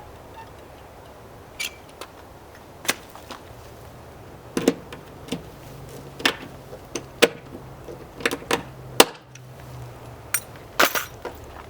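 About a dozen sharp clicks and knocks at irregular spacing, from hand tools being worked while fitting a press stud to a caravan wall.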